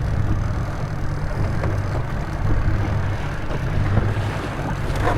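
Boat's outboard motor running steadily with a low hum, with the wash of wind and water over it.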